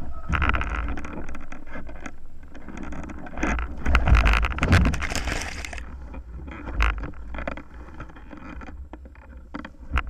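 Wind buffeting a camera mounted on a hang glider's base bar, mixed with the scrape and knocks of the glider's frame on grass as it lands. A loud rush of noise comes about four seconds in and ends sharply about two seconds later, with single sharp knocks later on.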